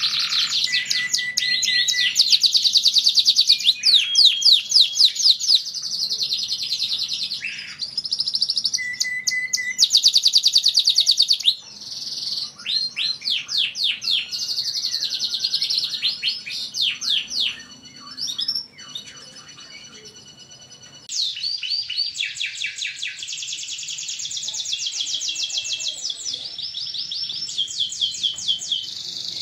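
Domestic canary singing a long song of fast trills and rolls. It breaks off briefly about two-thirds through, then starts again.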